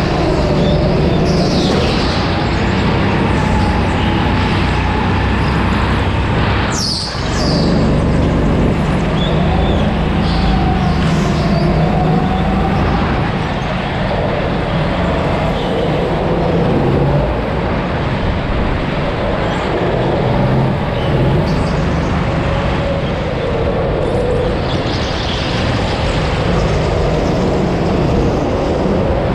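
Go-kart engine heard onboard at racing speed, its pitch rising and falling through the corners, with a brief dip about seven seconds in.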